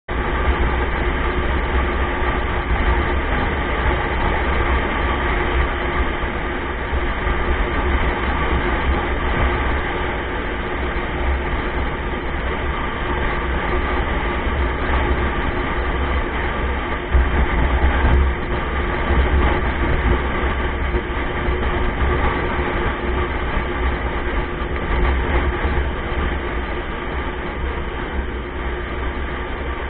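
Road and engine noise inside a moving vehicle at highway speed, picked up by a dashcam microphone: a steady, heavy low rumble with tyre roar and a faint constant hum, sounding dull and muffled.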